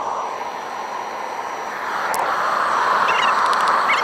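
Melting furnace's burner running with a steady rushing noise that grows louder about halfway through, with a single sharp click near the middle.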